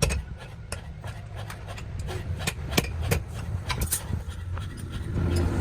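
Irregular sharp knocks and taps of hand tools on metal at a blacksmith's work, over a low steady rumble.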